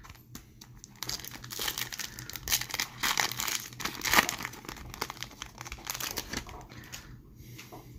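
Foil-lined hockey card pack wrapper crinkling and tearing as it is ripped open by hand, starting about a second in, with several louder crackles, then fading out near the end.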